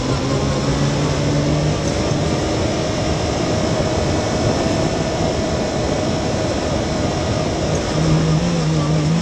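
Yamaha YXZ1000R side-by-side's three-cylinder engine running under load as the machine picks up speed on a dirt trail, over a steady rush of wind and tyre noise.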